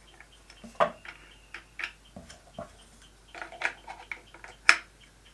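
Scattered plastic clicks and taps from handling a Yongnuo YN300 III LED video light and fitting its small stand to the mount underneath, with the sharpest click near the end.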